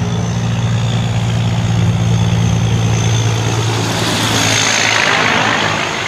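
Diesel semi-truck engine running steadily as articulated trucks drive past on a road, with tyre and road noise. The rushing noise swells about four seconds in as a trailer passes close.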